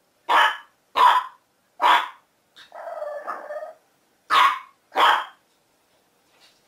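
A Boston Terrier barking: three sharp barks, a rough growl lasting about a second, then two more barks.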